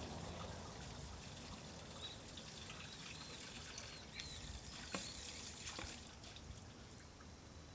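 Faint outdoor ambience: a low steady hiss with a few soft clicks and some faint, short, high chirps in the middle.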